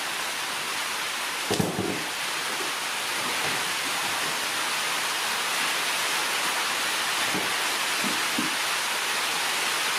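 Steady rushing hiss with no rhythm or pitch, with a brief knock about one and a half seconds in.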